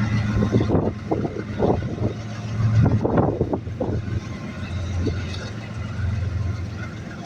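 Freight train rolling by: a steady low engine drone with irregular clanks and clatter of wheels and cars, which thin out after about four seconds.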